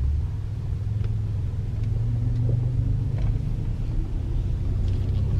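Steady low rumble of a car in motion, its engine and tyre noise heard from inside the cabin.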